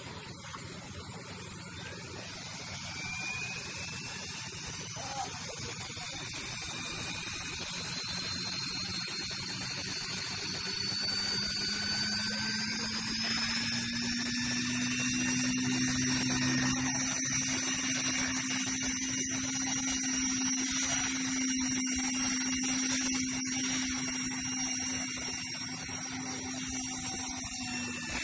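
KDS Agile 5.5 radio-controlled helicopter spooling up on the ground: a motor and rotor whine that rises in pitch over the first half, then holds steady at flying speed. It lifts off near the end.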